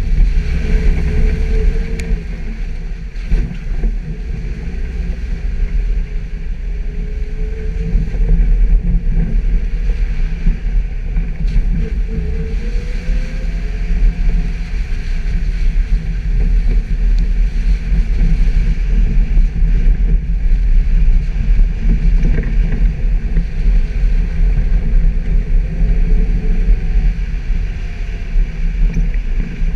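Suzuki Jimny engine running continuously as the vehicle drives off-road, a deep steady rumble with faint rises and falls in pitch, mixed with wind buffeting the microphone.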